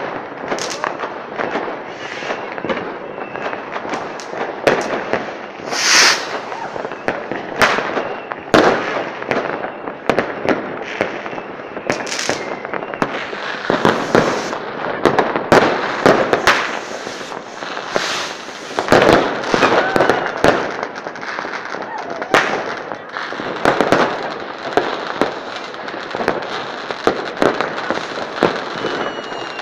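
Fireworks display: a steady, rapid run of bangs and crackling, with louder bursts about six and twelve seconds in.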